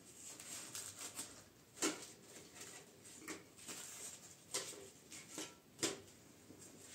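A handful of sharp, light knocks spaced a second or more apart, over faint background noise.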